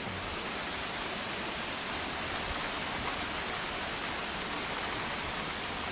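Steady rain falling, an even hiss of drops that holds level throughout.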